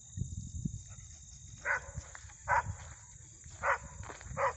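A dog barking four times, short single barks about a second apart.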